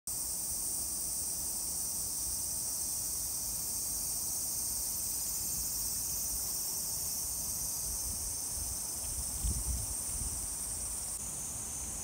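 Cicadas singing in a steady, unbroken, high-pitched drone, over a low rumble that swells briefly about nine and a half seconds in.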